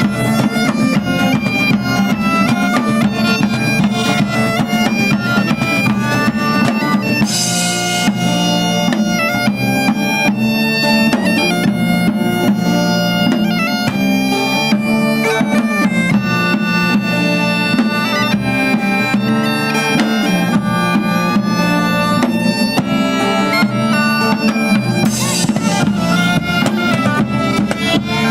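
Bagpipe music: a steady drone under a shifting melody, with drum accompaniment.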